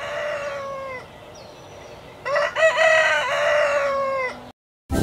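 A rooster crowing twice. The first crow tails off about a second in, and a second long crow starts just after two seconds, rising and then holding on a falling note for about two seconds before it cuts off.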